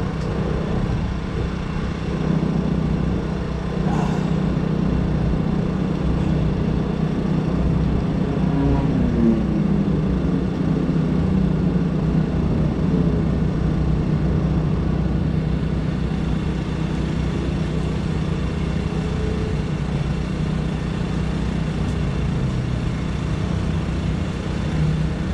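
A steady low motor hum with a constant pitch, like an engine running at idle. A fainter rising and falling engine sound passes about eight to twelve seconds in.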